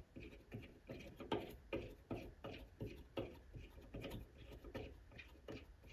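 Faint metallic ticking, about three a second, as a threaded piece is screwed by hand into a freshly cut internal thread in a lathe workpiece to test the fit.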